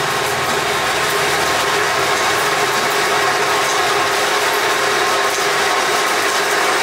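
Loud, steady mechanical clatter from a running machine.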